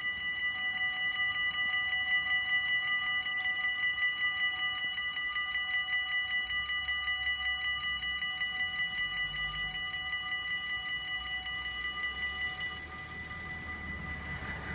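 Warning bells of a Dutch automatic half-barrier level crossing ringing rapidly as the barriers come down, the signal that a train is approaching. Near the end the ringing gets quieter as some of the bells stop.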